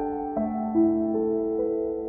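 Slow, gentle new-age instrumental music: single notes entering about every half second, each ringing on under the next.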